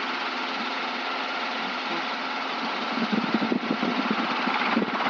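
Robinson R22 helicopter's piston engine and main rotor running steadily, heard from the cockpit while flying low and slow over the water. A rhythmic rotor beat grows stronger about three seconds in.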